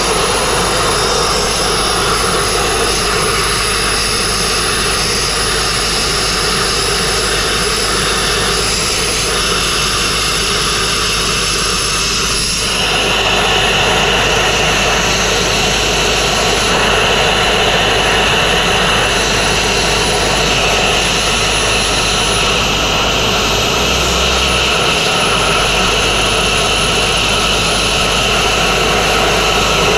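Sandblasting nozzle blasting abrasive at a soft stone wall in a steady, loud rushing hiss, set low at the start because the stone is soft. A little under halfway through the blast turns louder and sharper.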